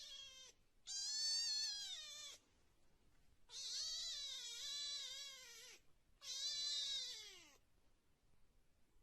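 A cat meowing: three long, drawn-out meows with short pauses between them, the last one sliding down in pitch.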